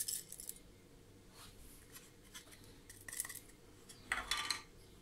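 Faint, sparse taps and light scrapes of kitchen handling: salt shaken from a small black container over flour in a glass bowl. A slightly louder scrape comes about four seconds in.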